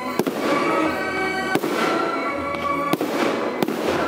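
Aerial firework shells bursting, about four sharp bangs with crackling between them, over music played with the display.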